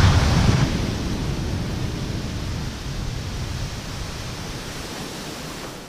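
Ocean surf breaking and washing up a sandy beach, a steady rush of noise with a low rumble, gradually fading out.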